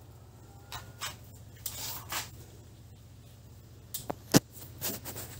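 Nylon monofilament fishing netting being pulled and cut by hand, strand by strand: a string of sharp snips and snaps with rustling of the net between them, the loudest snap about four seconds in.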